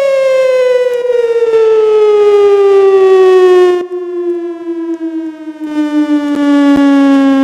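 Single-tone mechanical siren winding down at the end of a noon blast, its pitch falling steadily and smoothly. About four seconds in it turns quieter and duller for a second or two, then comes back up as it keeps sinking.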